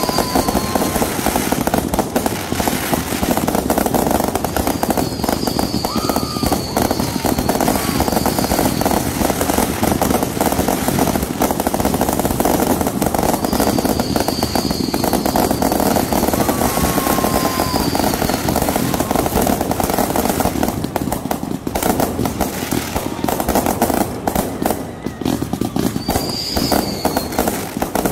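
Consumer fireworks going off without a break: dense crackling and popping from a spark fountain and aerial bursts, with short high whistles every few seconds.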